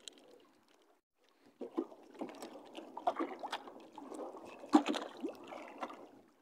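Seawater splashing and trickling as a mesh catch bag is worked at the water's surface beside a small boat, with scattered small knocks. It starts after a quiet first second or so, and the sharpest knock comes about five seconds in.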